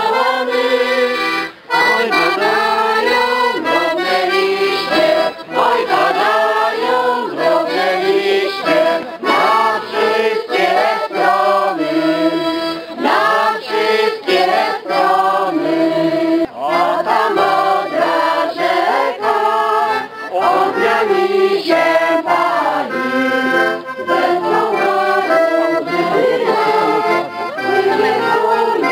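A Hohner piano accordion playing a traditional Polish folk song, with a man singing loudly over it.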